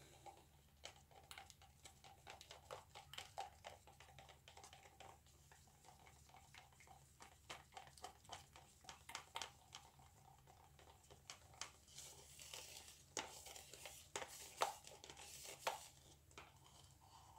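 Quiet, irregular small clicks, taps and crinkles from painting supplies being handled on a plastic-sheeted worktable, with a faint steady tone under the first half.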